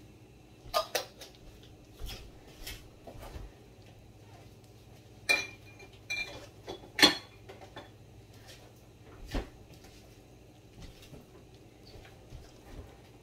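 Scattered clinks and knocks of dishes and utensils being handled. A couple of them ring briefly, about five and six seconds in, and the loudest clink comes about seven seconds in.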